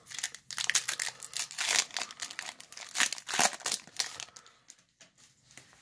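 Foil wrapper of a Topps Chrome Update baseball card pack being torn open and crinkled: a run of sharp crackling rustles that thins out and stops about five seconds in.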